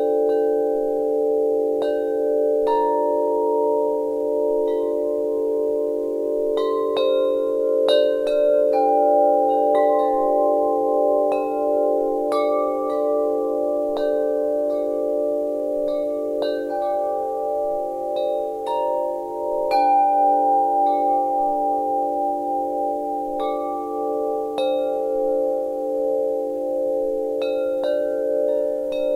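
Wind chimes ringing, struck at irregular moments, often several close together. Each clear note rings on for seconds, over a steady, wavering blend of lower lingering tones.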